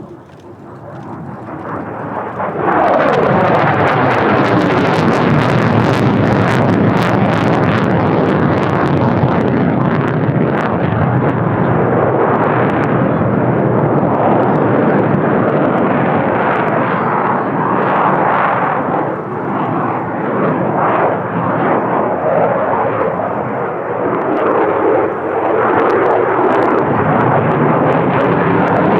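F-35A Lightning II's single Pratt & Whitney F135 jet engine: loud jet roar that swells suddenly about three seconds in, its pitch sliding downward as the jet passes, then stays loud as the jet keeps maneuvering.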